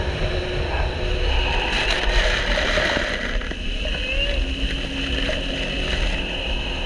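Jet ski running at speed across open water: a steady engine and water-rush noise with heavy wind buffeting on the camera's microphone.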